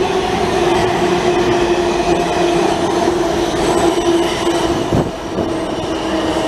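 Washington Metro subway train pulling into an underground station and running past along the platform: a steady whining tone over the noise of the wheels on the rails.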